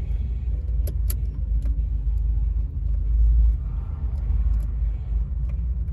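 A few light metallic clicks and taps of an ignition-cylinder removal tool working under the lock cylinder in a steering column, probing for the cylinder's release button, over a steady low rumble that swells about three seconds in.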